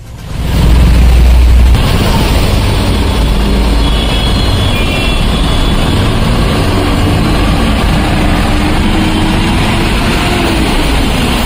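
Vehicle engines running on a waterlogged road over a steady rushing noise, loudest for the first couple of seconds.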